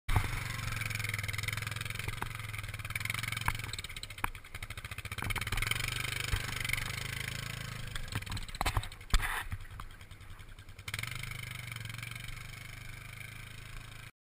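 Yamaha ATV engines (a Grizzly and a Warrior) running at low speed, a steady drone that sags twice, with scattered sharp clicks and one loud knock about nine seconds in. The sound cuts off suddenly near the end.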